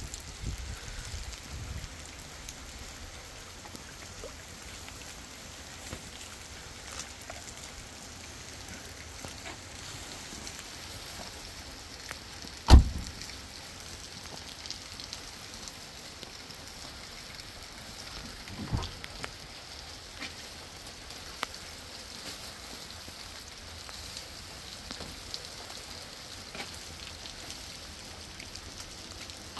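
Steady rain pattering, with scattered drips ticking. A single sharp thump cuts through about halfway, and a softer knock comes some seconds later.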